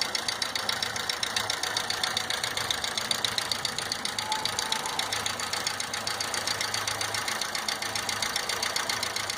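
A VW EA111 1.0 8-valve four-cylinder engine idling, with a fast, even ticking from the cylinder head. It sounds like the tapping of bled-down hydraulic lifters, but the cause is camshaft bearing journals worn deep into the head and bearing caps from poor lubrication.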